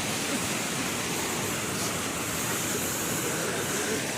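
Small waterfall rushing: a steady, even hiss of falling water.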